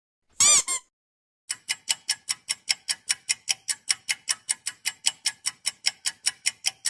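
A short warbling tone, then a ticking-clock sound effect: a fast, even run of sharp ticks, about five a second, lasting several seconds.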